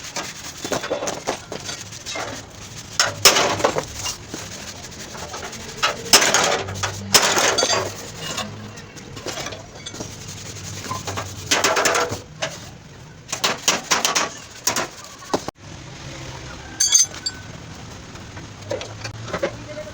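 Hand tools working on a damaged car body panel: irregular scraping strokes, each about half a second to a second long, mixed with sharp metallic clinks.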